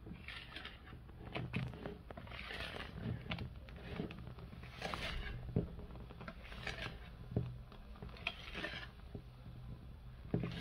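Wire balloon whisk folding thick sponge batter in a mixing bowl: irregular soft swishes and scrapes, with light clicks of the wires against the bowl.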